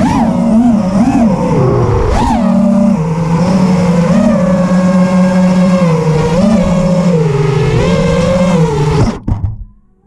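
FPV racing quadcopter's brushless motors and propellers whining, the pitch rising and falling quickly with throttle before holding fairly steady. The sound cuts off suddenly about nine seconds in.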